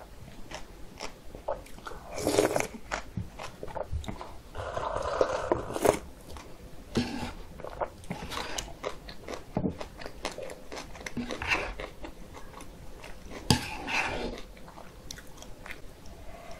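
Close-miked mukbang eating sounds: chewing and slurping of cold kongguksu (soybean-milk noodle soup with shaved ice), in irregular bursts. A sharp click of chopsticks against a bowl comes in the later part.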